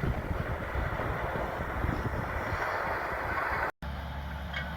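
Caterpillar D8K bulldozer's diesel engine running as it plows snow, heard through wind buffeting the microphone. It cuts off abruptly near the end, giving way to a steady low engine hum.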